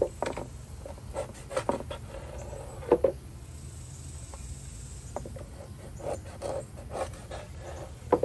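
Cleaver blade knocking against a plastic cutting board in irregular single taps while scoring a stingray wing, the loudest knock about three seconds in. A steady low hum runs underneath.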